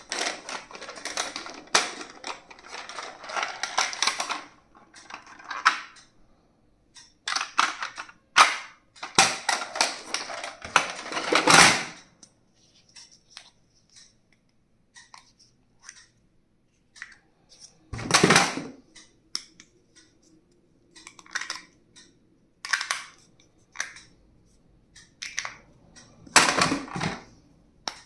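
Stationery being unboxed and handled: packaging crinkling for the first few seconds, then scattered sharp plastic clicks, taps and short rustles with quiet gaps between.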